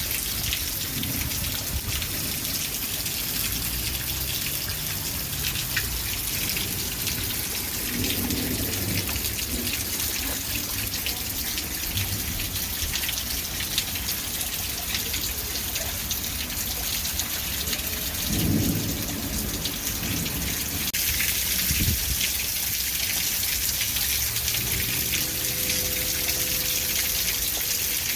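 Steady rain falling, with many separate drops striking a surface. Low rumbles come now and then, the clearest about two-thirds of the way through.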